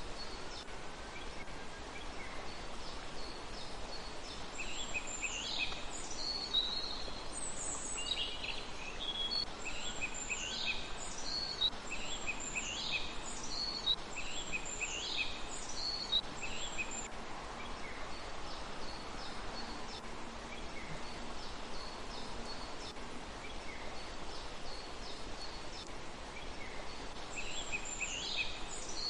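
A small bird calling over and over, each call a quick high note falling in pitch, repeated about every second or two for roughly twelve seconds before thinning out, over a steady outdoor hiss.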